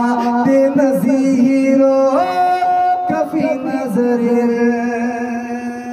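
A man singing a naat in long, drawn-out held notes, unaccompanied. The line steps up in pitch about two seconds in and comes back down a second later.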